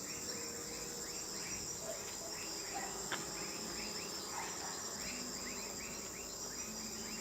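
Night insect chorus: a steady high-pitched trill with a repeating chirp about four times a second, and a single faint click about three seconds in.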